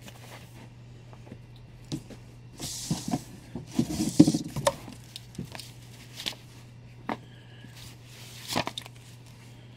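Comic books being handled and pulled out of a cardboard shipping box: paper rustling with light taps and knocks, busiest a few seconds in, over a steady low hum.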